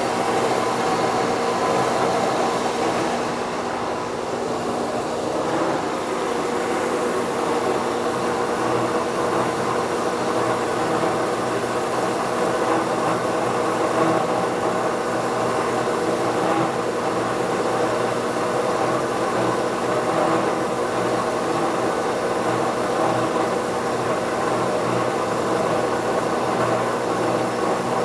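Northfield 25-inch No. 7 planer running steadily under its 7.5 horsepower electric motor: a loud, even machine hum made of several steady tones over a whirring rush, with no change in speed.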